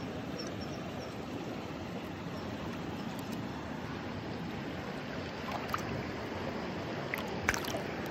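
Shallow stream water running steadily over stones, with a few light splashes near the end as the fish is released into the water.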